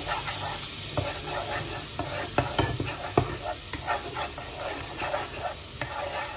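Butter and black pepper sizzling in a nonstick pot while a spatula stirs it, with a steady hiss and irregular light knocks and scrapes of the spatula against the pot.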